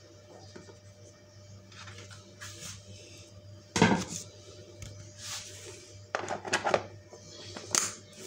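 A plastic lunch box handled on a hard counter: a sharp knock about four seconds in, then a cluster of clatters and clicks as its plastic lid is put on and pressed shut near the end.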